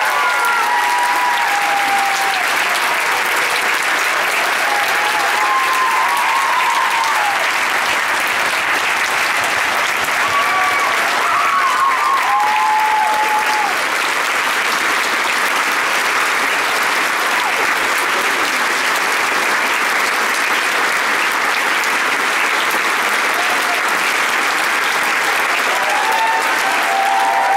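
Large audience applauding steadily, with a few cheers rising above the clapping now and then.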